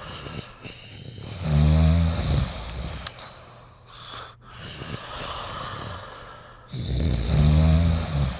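Snoring: two loud, low snores about five seconds apart, each lasting about a second, with softer breathing between them.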